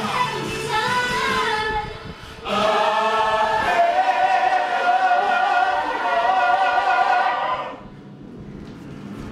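A group of mixed voices singing together, then holding one long loud note for about five seconds that breaks off shortly before the end.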